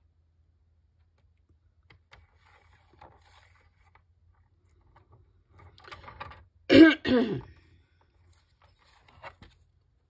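A woman clears her throat once, sharply, about seven seconds in. Before it come faint clicks and rustles of paper being handled on a paper trimmer.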